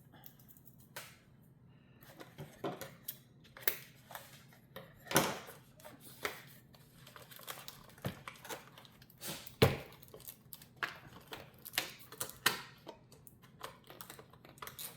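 Irregular clicks, snaps and rattles of small plastic parts being worked loose from tight packaging by hand, with two louder knocks about five and ten seconds in.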